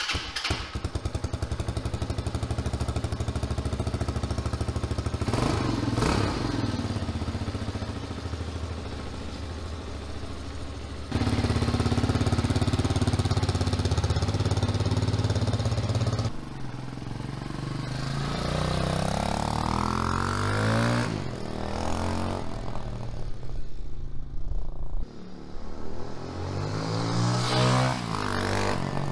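TaoTao TBR7's 229cc single-cylinder four-stroke engine, running on its newly rejetted stock carburettor, idles steadily and then louder. It then revs and pulls away, its pitch rising about two-thirds of the way through and rising again near the end.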